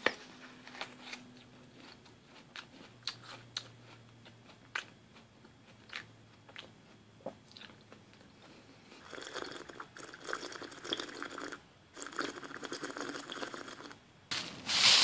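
Close-miked crunching: a few small scattered clicks at first, then bursts of dense crunching from about nine seconds in, growing louder near the end.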